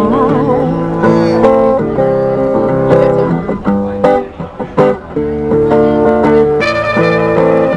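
Instrumental music with guitar chords and no singing; brighter, higher notes join near the end.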